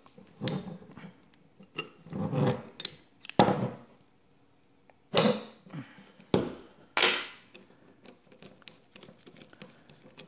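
Steel wrench, socket and AN fitting clanking and scraping against each other and the hard tabletop as the fitting is loosened and lifted off: about six separate knocks and scrapes, then a run of lighter clicks near the end.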